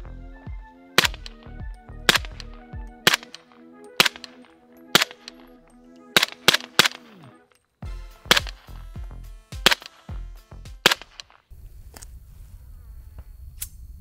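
Rifle shots from a .300 Blackout firing subsonic rounds, about one a second, with a quick string of three about six and a half seconds in, over background music of held synth notes. The music stops about eleven and a half seconds in, leaving a low steady rumble and a few faint clicks.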